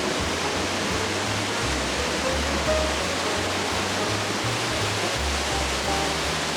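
A waterfall rushing in a steady, even hiss of falling water. Low, uneven rumbles of wind on the microphone run under it.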